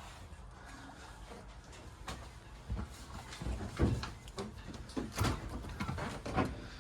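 Cabinet doors and latches in a boat's cabin being opened and shut: several separate clicks and knocks spaced out over a few seconds.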